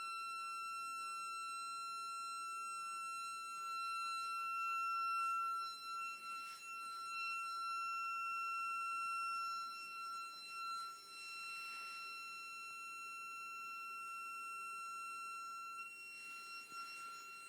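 Flush button of an IFÖ wall-hung toilet's concealed cistern whistling: one steady high-pitched tone with overtones that holds without a break. The toilet is making this whistle where it should be silent, a fault whose cause is not known.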